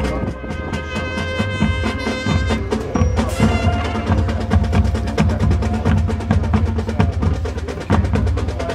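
High school marching band playing a percussion-heavy passage: rapid drum and mallet-keyboard strikes over held low notes.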